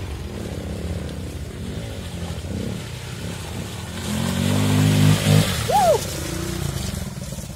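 Trail motorcycle engine running at low revs, then revving up louder for about a second and a half past the middle before easing back.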